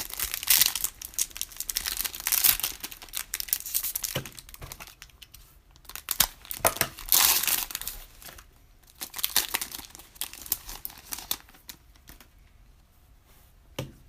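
Foil wrapper of a trading card pack being torn open and crinkled, in irregular bursts of crackling rustle.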